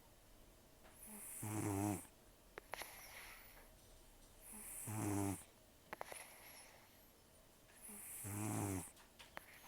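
An elderly cat snoring in its sleep, rough and buzzing. Three snores come about three and a half seconds apart, each lasting about a second, with faint clicks between them.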